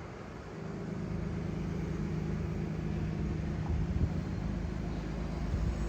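An engine running steadily at a constant pitch, growing a little louder about half a second in.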